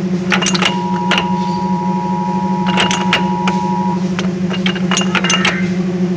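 Clausing Colchester lathe headstock with its gears being shifted: a steady low hum with scattered metallic clicks and clunks from the shift mechanism and gears, and a thin steady whine from about a second in until about four seconds.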